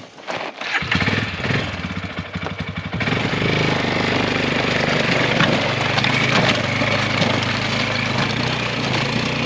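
ATV engine cranked on the electric starter and catching within about a second, running at a pulsing idle, then running steadily and louder from about three seconds in as the quad pulls away.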